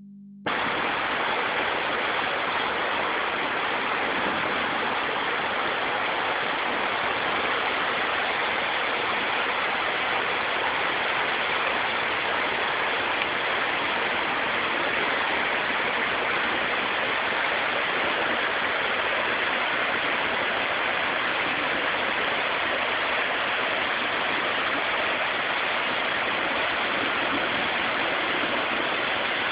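Creek running high and fast after heavy rain, a steady rush of water.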